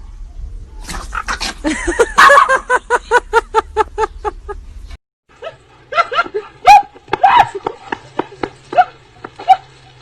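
An animal calling over and over in quick succession, about four calls a second, then after a sudden break a second run of irregular calls.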